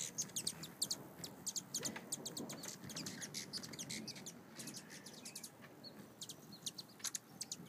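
Hummingbirds at a feeder giving quick runs of high, sharp chip notes, the chattering of birds chasing one another off the feeder.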